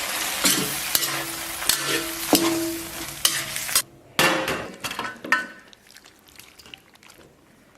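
Pig intestines, chili peppers and onion stir-frying in a hot wok: sizzling with the spatula scraping and clicking against the pan. The sizzle cuts out briefly about four seconds in, comes back in a last burst of stirring, and dies away over the next couple of seconds.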